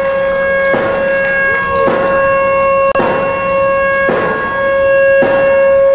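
A siren sounding one steady, held tone, set off by a push button to signal the start of the groundbreaking. A short, heavy knock repeats about once a second over it.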